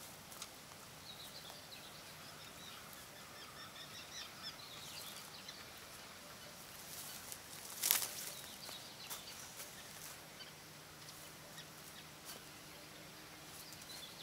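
Faint outdoor ambience with small birds chirping on and off, scattered light clicks, and one sharp knock about eight seconds in.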